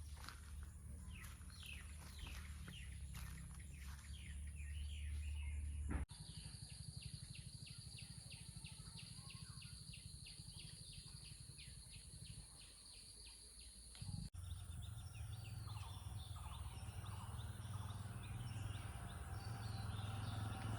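Outdoor ambience of birds chirping over a low steady rumble, broken by two hard cuts. In the middle part a rapid, even ticking call repeats about four times a second for several seconds.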